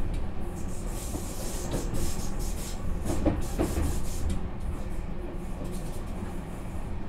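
Tokyu 5000 series electric commuter train running, heard from inside the passenger car: a steady rumble of wheels on rail with some hiss, and a quick pair of wheel-over-rail-joint clacks about three seconds in.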